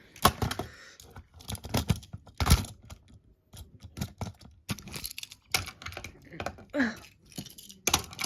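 An irregular run of sharp clicks and taps, bunched at times and spaced out at others, with a brief pitch glide about seven seconds in.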